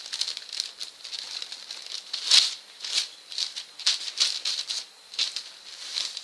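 Brown paper sewing-pattern pieces rustling and crinkling as hands shift the layers and smooth them flat, in irregular crackly bursts, the loudest about two seconds in.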